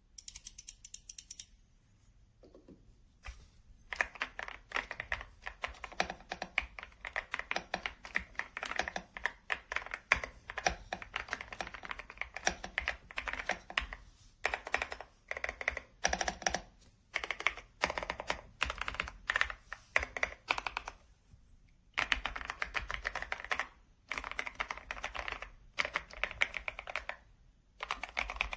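Typing on a YUNZII C75 mechanical keyboard with Candy linear switches: rapid runs of key clacks, starting a few seconds in, with a few short pauses between bursts.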